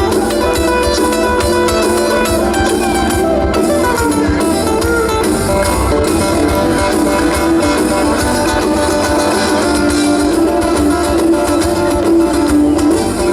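Live rock band playing an instrumental passage, led by guitar over bass and drums.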